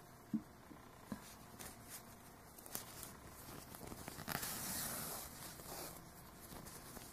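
Faint rustling of yarn being drawn through crocheted stitches with a large needle, with a few small clicks early on and a longer scratchy rustle about four seconds in.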